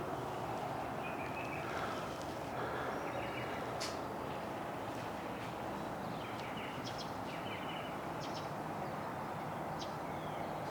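Small birds chirping in short, scattered calls over a steady background noise.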